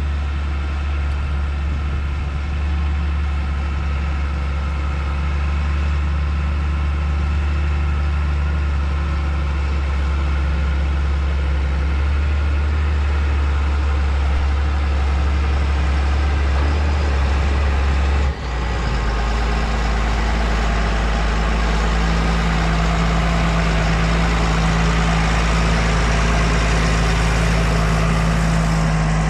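Large diesel engine of a Caterpillar Challenger rubber-tracked tractor running steadily as it drives in towing a disc cultivator. The low engine note shifts abruptly about eighteen seconds in.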